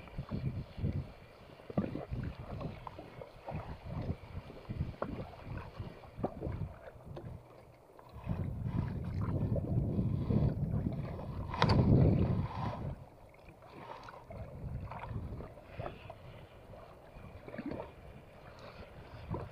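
Wind on the microphone and water slapping against a small outrigger boat at sea, with irregular low knocks. About eight seconds in, a cloth sleeve rubs over the camera microphone for several seconds, loudest in a thump around twelve seconds.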